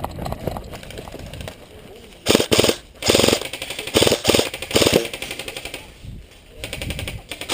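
Airsoft rifles firing short full-auto bursts of BBs: four rapid rattling bursts in quick succession, each about half a second long.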